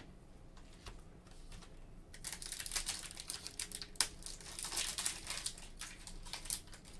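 Foil wrapper of a Panini Flux basketball card pack crinkling and crackling as it is handled and torn open. It is faint for the first couple of seconds and then a run of quick crackles sets in.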